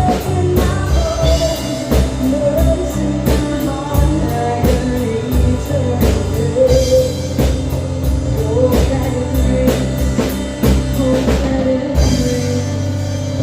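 A rock band playing a song: drum kit, guitar and a singing voice. Near the end the drums stop, leaving held chords ringing.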